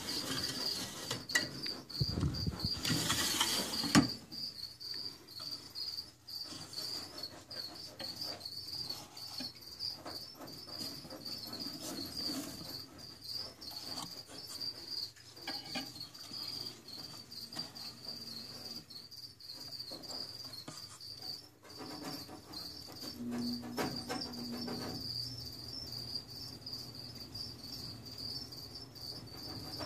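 Crickets chirping in a steady, continuous high trill. About two to four seconds in, a louder rustling scrape ends in a sharp knock.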